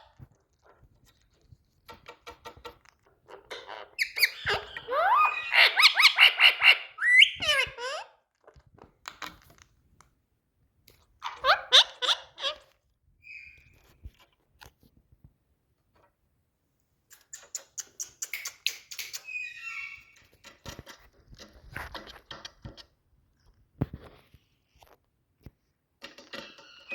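Indian ringneck parrot vocalising in intermittent bursts of squeaky, gliding whistles and chatter, with pauses between bursts; the longest burst comes a few seconds in.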